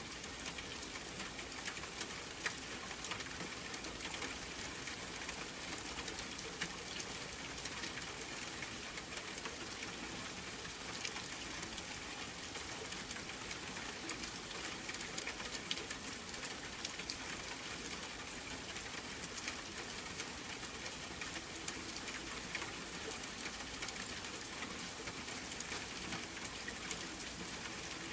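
Steady rain falling: an even hiss dotted with scattered ticks of single drops striking a surface, one sharper tick near the end.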